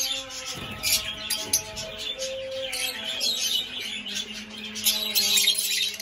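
A flock of Fischer's lovebirds chirping and twittering in quick, high calls, over soft background music with held notes.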